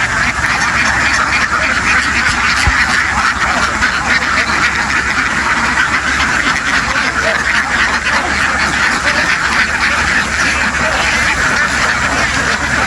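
A huge flock of ducks quacking all at once: a dense, unbroken din of countless overlapping calls.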